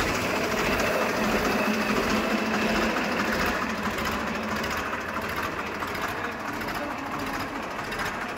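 A 2002 Massey Ferguson 1035 DI tractor's Simpson three-cylinder diesel engine idling steadily.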